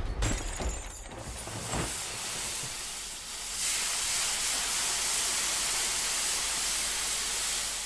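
Steam hissing steadily as it vents, growing louder about three and a half seconds in and fading away at the end. A low rumble dies away in the first two seconds.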